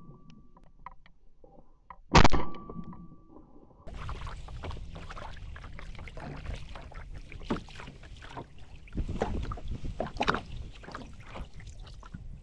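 A single shotgun shot about two seconds in, followed by a faint steady high tone. Then, from about four seconds in, a small plastic kayak being paddled: irregular paddle splashes, water lapping and knocks against the hull.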